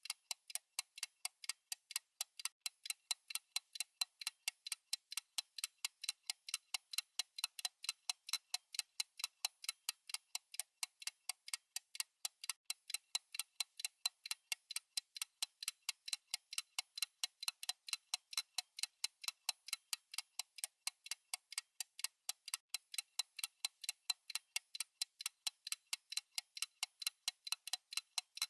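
Countdown timer's fast clock-tick sound: sharp, high, evenly spaced ticks at about four a second, steady throughout.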